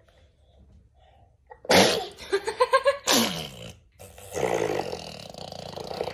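Baby sneezing: after a near-quiet start, a sudden loud sneeze a little under two seconds in, with more loud sneeze-like sounds after it.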